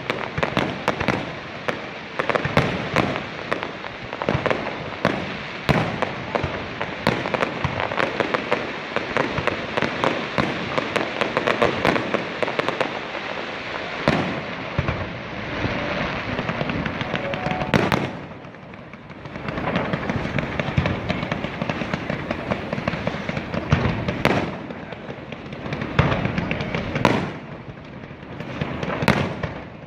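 Fireworks display: dense, rapid bangs and crackling for roughly the first seventeen seconds, then single loud booms every few seconds with quieter gaps between.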